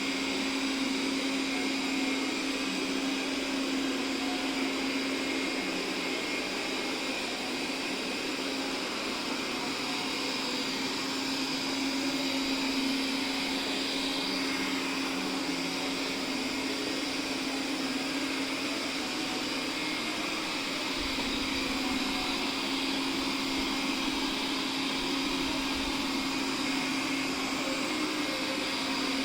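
Robot vacuum cleaner running steadily: a constant hum with an even, airy hiss that holds at one level throughout.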